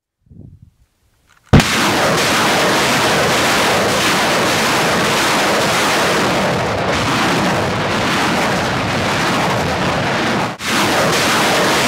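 Salvo fire from truck-mounted multiple rocket launchers: a sudden loud blast about a second and a half in, then a continuous dense roar of rockets launching in rapid succession. The roar breaks off for an instant about ten and a half seconds in, then carries on.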